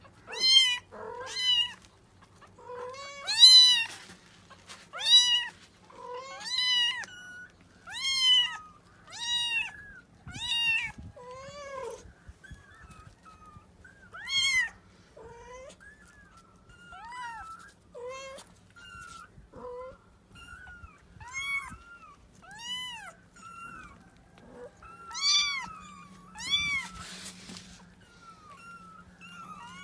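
A kitten mewing over and over in short, high-pitched calls, each rising then falling in pitch. The calls come about one a second at first and grow sparser after about ten seconds.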